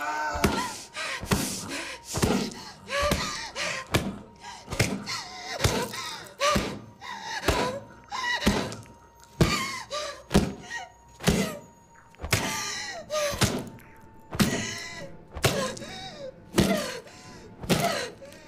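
A run of heavy thuds, about one or two a second, each followed by a short voice-like cry.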